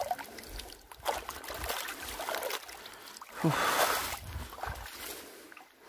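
Feet wading through a shallow stream, water splashing and sloshing around the legs in irregular bursts, with a louder wash of splashing a little past the middle.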